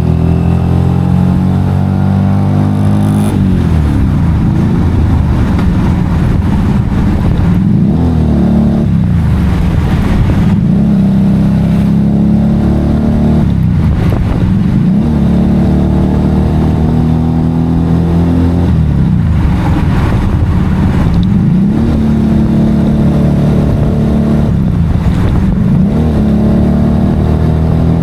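Motorcycle engine running hard under way, its revs climbing and then dropping sharply again and again.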